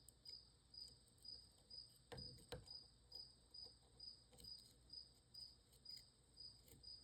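Faint cricket chirping steadily, a little over twice a second, with two light clicks a little over two seconds in.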